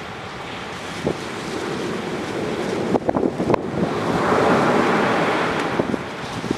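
Sea waves washing onto a sand beach, one wash swelling up and falling back about four seconds in, with a few sharp crackles and pops from a driftwood campfire scattered through it.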